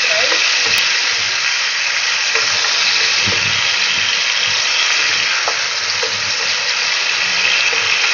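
Chicken pieces sizzling steadily as they fry in hot oil in a kadhai, with a wooden spatula tapping and scraping the pan a few times as it stirs them.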